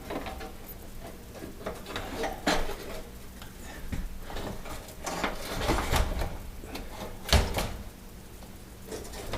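Oven door of a Viking freestanding range being slid back onto its repaired hinges: a series of irregular metal clunks and rattles, the loudest about seven seconds in.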